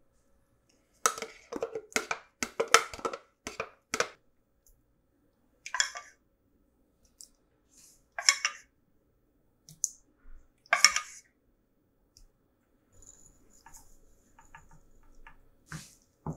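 Kitchen knocks and clinks against a stainless steel mixing bowl as a blender jar of seasoning paste is emptied into it and ingredients are added: a quick run of sharp knocks in the first few seconds, then single clinks spaced a few seconds apart. Near the end comes faint scraping of a wooden spoon stirring the paste.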